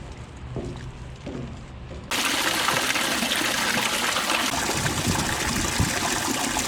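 Rushing water of a mountain stream: a loud, even rush that cuts in sharply about two seconds in, after a quieter low rumble.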